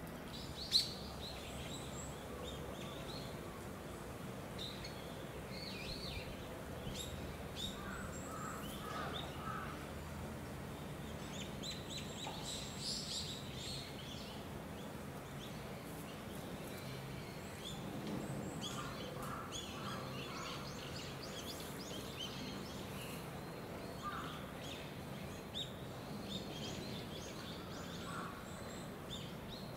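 Small birds chirping on and off over a steady low background noise, with one sharp knock about a second in.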